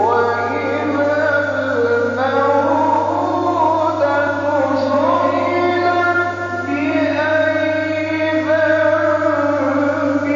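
A male reciter chanting the Quran in a slow melodic style, holding long, ornamented notes that glide up and down in pitch, over a steady low hum.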